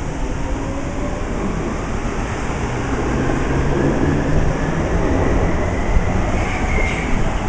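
Munich U-Bahn train pulling out of the station: the traction motors whine in several tones that rise in pitch as it gathers speed, over a steady rumble of wheels on rail that grows louder. A brief high squeal near the end.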